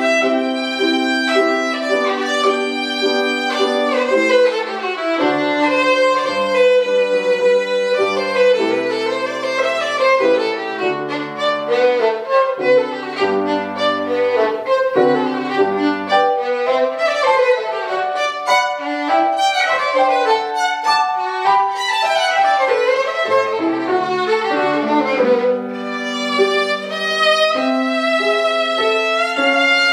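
Violin playing a classical piece with grand piano accompaniment: the violin carries the melody with vibrato over the piano's chords.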